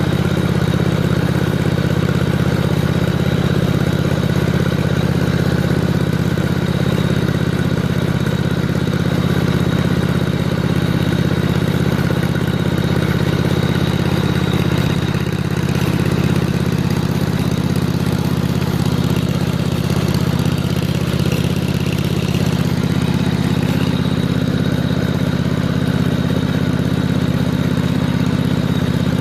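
A motor running steadily with a constant low hum and a faint high whine, unchanging throughout.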